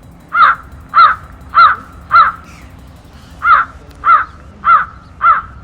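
A bird giving eight loud, harsh calls, two runs of four evenly spaced calls with a short pause between the runs.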